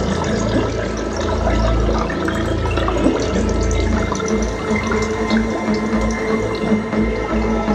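Sound-design soundtrack of a building projection show: a continuous rushing, water-like noise over a deep rumble, with a few steady held tones. Near the end the deep rumble starts to pulse.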